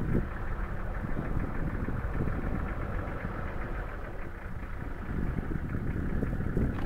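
Safari vehicle engine idling: a steady low rumble.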